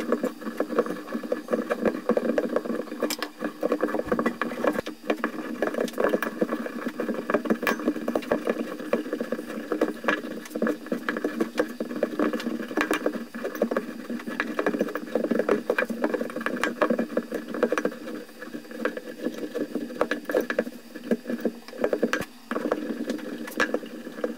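Wire wool crackling and rustling as it is packed by hand into a Stirling engine's regenerator housing and pressed down with a metal rod. The crackling is dense and continuous, with many small clicks.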